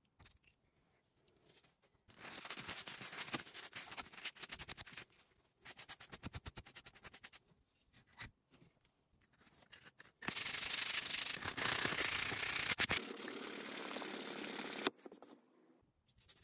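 Abrasive sanding across the end of a softwood board, in three spells, the last and loudest lasting about five seconds. It is smoothing a glued-back wood sliver flush.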